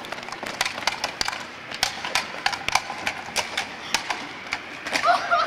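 Footsteps on pavement: irregular sharp taps, several a second, with a brief voice near the end.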